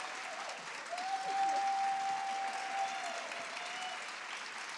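Audience applauding at the end of a chorus performance, with a long high held cry from someone in the crowd rising over the clapping about a second in and dropping away near three seconds.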